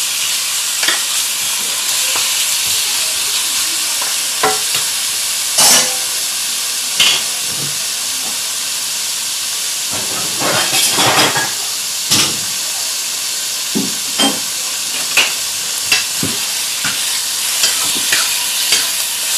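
Chicken pieces frying in hot oil in a pan, a loud steady sizzle, with short knocks and scrapes of a utensil stirring against the pan throughout and a quick flurry of them about halfway through.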